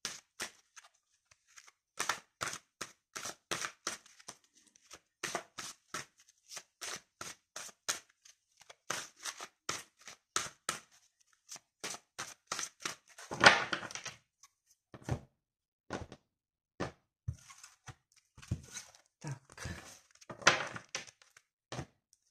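A deck of reading cards being shuffled by hand: a long run of quick papery slaps and flicks, with two louder rustling bursts, about halfway through and near the end.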